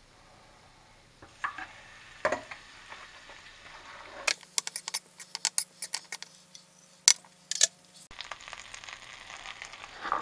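Butter melting in a hot skillet, sizzling and crackling with quick sharp pops, busiest in the middle of the stretch; a few light clicks of the butter and utensil against the pan come before it.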